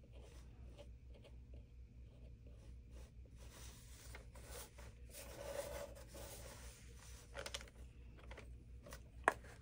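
Faint scratching and tapping of a metal-tipped dotting tool on a resin coaster, with hands rubbing and shifting on the work surface, over a low steady hum. A single sharp click sounds near the end.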